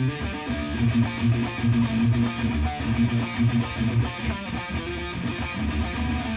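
Single-cutaway solid-body electric guitar playing a continuous picked riff, with low notes pulsing steadily beneath quicker higher notes.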